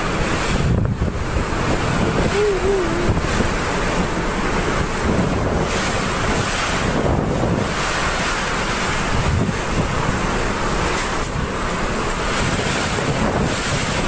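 Hurricane-force wind and heavy rain blowing in strong gusts, buffeting the microphone.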